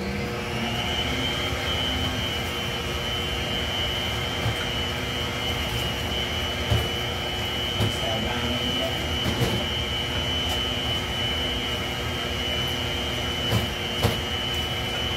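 Electric stand mixer switched on right at the start and running steadily with a high whine, mixing a dressing of sour cream, plain yogurt and cream cheese in its bowl. A few light knocks come through over the motor.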